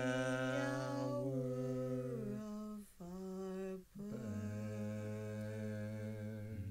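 Wordless a cappella voices humming long held notes in harmony, with short breaks about three and four seconds in before the chord is held again.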